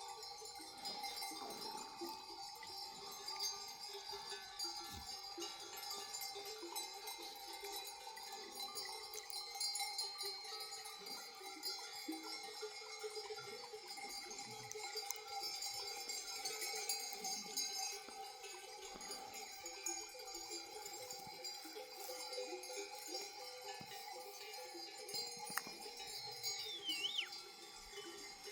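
Many bells worn by a flock of sheep ringing and clinking together continuously, a dense jumble of overlapping tones.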